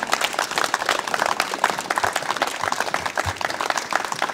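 Crowd applauding, a steady patter of many hands clapping.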